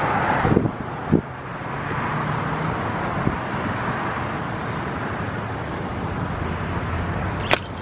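Steady outdoor traffic noise with wind on the microphone, broken by a few light knocks and one sharp click near the end.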